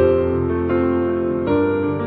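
Background music: soft piano, with new notes struck about every half second.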